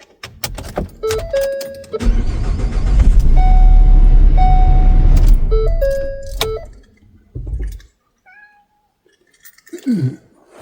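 Ford Transit 350 van cranked and started, its engine running loudly for a few seconds before shutting off, with dashboard warning chimes before and after. It starts normally here despite the van's intermittent no-start fault. A short falling animal call comes near the end.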